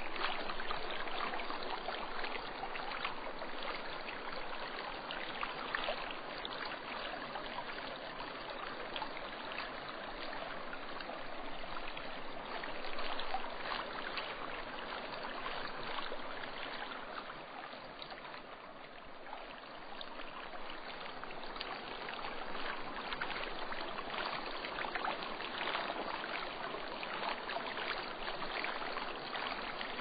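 River water rushing steadily through a gorge, a continuous, even rush full of fine splashing.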